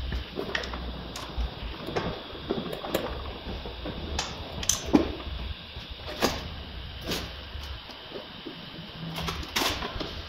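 Irregular clicks and light knocks, a dozen or so, from hands working parts at the window frame of a stripped-down VW Polo 9N3 rear door; the sharpest knocks come about five and nine and a half seconds in.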